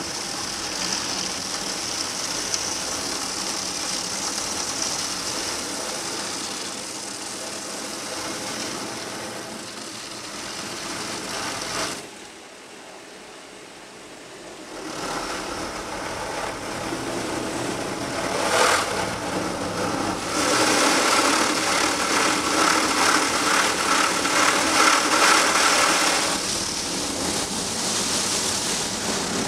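Automatic car wash heard from inside the car: rotating polyethylene brushes and water spray scrubbing over the bodywork and rear window. The sound eases for a few seconds about twelve seconds in, then grows louder again as the brushes work back across the rear of the car.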